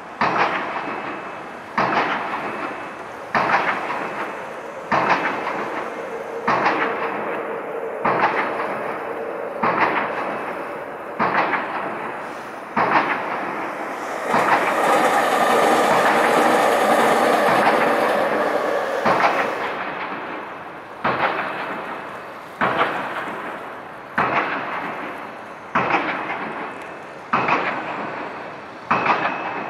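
Impact pile driver hammering piles for a bridge foundation: sharp, ringing strikes at a steady pace of about one every second and a half. About halfway through, a steady rushing noise swells for about five seconds and fades, covering the strikes.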